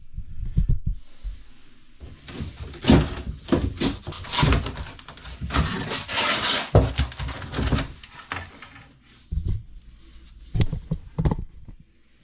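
Repeated knocks and clunks with scraping while the old drain plumbing is being worked on in a small enclosed space, busiest about halfway through.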